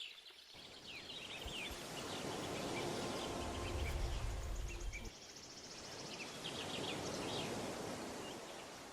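Faint outdoor ambience: birds chirping over a steady background hiss, with a low rumble about four seconds in.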